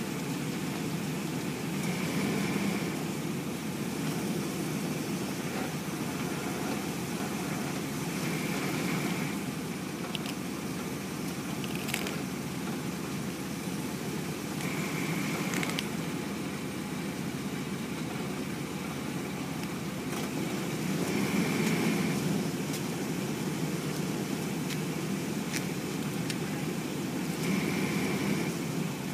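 Pickup truck engine idling steadily while the truck creeps forward onto an egg, with a sharp crack near the middle as the shell breaks under the tyre.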